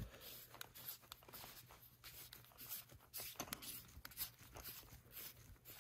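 Faint clicks and scratchy scraping of a threaded adapter being screwed onto a telescope field flattener by hands in nitrile gloves.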